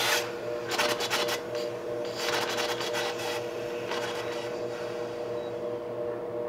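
3D-printed cross-plane inline-four air engine turning fitfully on compressed air: short bursts of hissing exhaust puffs and rapid clicking, the longest in the first three and a half seconds, then weaker. The air pressure is too low for it to run well.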